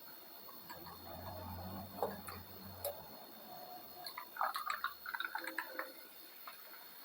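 Light clicks and small taps, with a faint low hum in the first half; the clicks come thickest about four to five seconds in.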